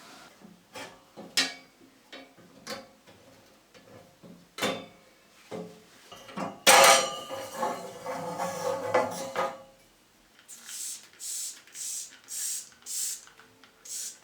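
Hard household items being handled during cleaning: scattered clicks and knocks, then a loud clattering rattle of hard objects for about three seconds. Near the end come about six short, quick hissing strokes.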